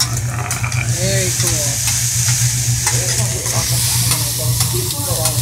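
Fried rice sizzling on a hot teppanyaki griddle while metal spatulas scrape and tap through it in quick clicks. The sizzle grows louder about a second in, over a steady low hum.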